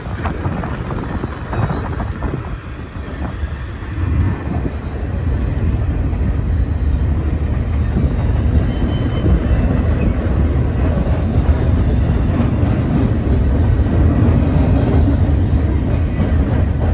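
Freight train rumbling past on the rails, a steady low rumble that sets in about four seconds in and builds, with wind buffeting the microphone in the first few seconds.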